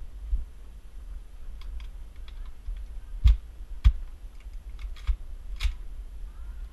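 Handling noise from an M16-style airsoft rifle: a scatter of light clicks and rattles, with two sharp knocks about half a second apart a little past the middle, over a steady low rumble.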